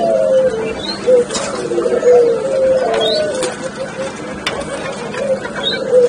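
Several Barbary doves (ringneck doves) cooing, their low coos overlapping one another. A few sharp taps sound between them.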